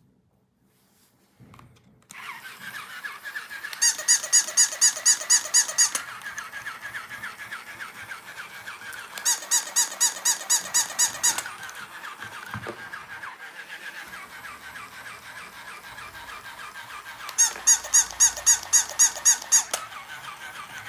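Battery-powered walking plush bunny toy running: its small motor and gears start about two seconds in and whir steadily with a fast rattle as it hops along. Three times, for about two seconds each, the toy gives a loud high-pitched pulsing sound, about four pulses a second.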